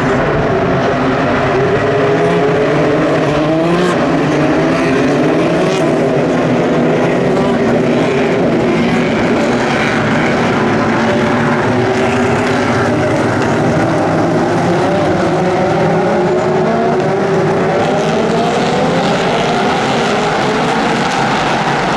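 A pack of endurance racing cars, LMP2 and LMP3 prototypes and GT cars, running together past the spectators. Many engine notes overlap at once, rising and falling as the cars accelerate and lift through the corner, with no break in the sound.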